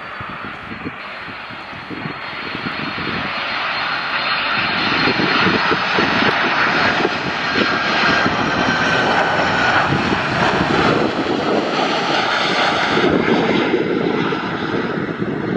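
Twin-engine jet freighter's engines running as it flies low past on final approach to land, growing louder over the first few seconds, with a high whine that drops slightly in pitch as it passes.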